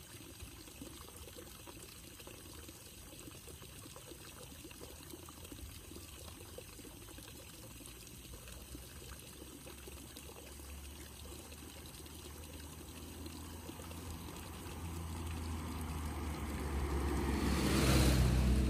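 Steady trickle of flowing water. Over the second half a motorbike engine grows steadily louder as it approaches, passing close by and at its loudest near the end.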